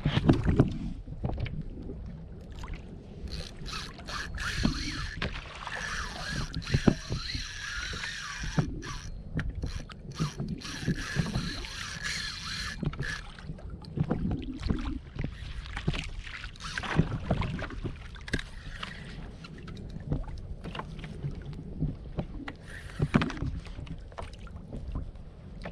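Water slapping against a kayak hull with wind rumbling on the microphone, while the fishing reel whirs in spells for about ten seconds in the first half as a hooked fish is fought.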